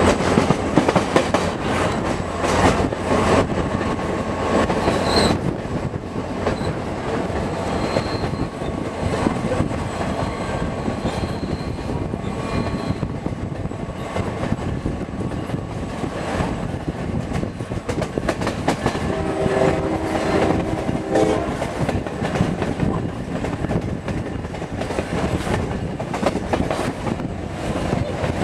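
Diesel-electric passenger train heard from aboard a car, wheels clattering over the rail joints under a steady rolling rumble. The locomotive's horn sounds a chord in several short blasts about two-thirds of the way through, and again at the very end.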